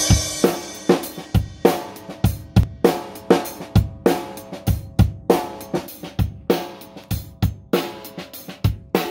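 Acoustic drum kit with Meinl cymbals played in a steady beat: bass drum and snare hits about twice a second under ringing cymbals. It is heard in a small treated booth, where a meter reads 85 to 102 dB.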